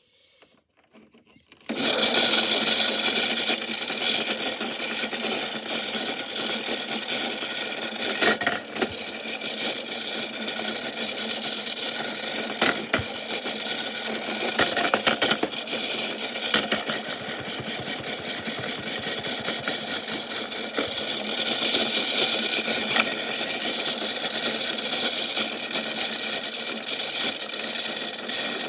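Washing machine running: a loud, steady mechanical noise starts suddenly about two seconds in and carries on throughout, with a few sharp knocks along the way.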